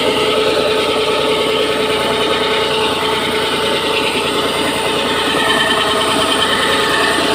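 Drilling machine running steadily, a continuous mechanical drone with a steady whine over it.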